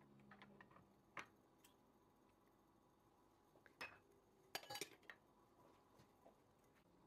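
A few faint clinks and taps of kitchenware, with a short cluster of rattling clinks about four and a half seconds in.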